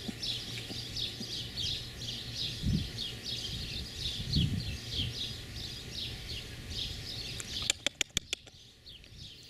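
Birds chirping, short chirps repeating a few times a second over a low rumble. About eight seconds in, a quick run of sharp clicks.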